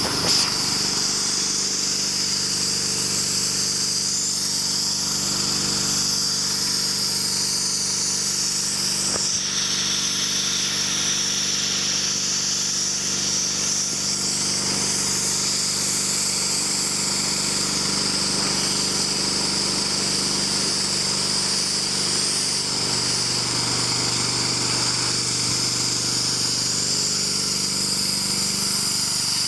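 Pressure washer running steadily: a motor hum under a strong, steady hiss of high-pressure water spray. The motor's note shifts slightly about two-thirds of the way through.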